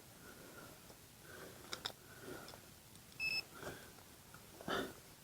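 Metal detector giving short, repeated signal tones as it is swept over a small buried screw, with one brief higher beep about three seconds in and a few soft clicks of handling and digging.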